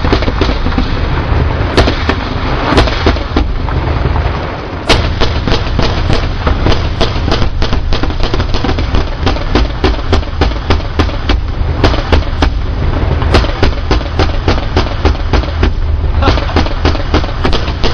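Sustained heavy gunfire from a Bradley fighting vehicle's 25 mm cannon: rapid shots, several a second, with louder, sharper reports now and then over a constant low rumble.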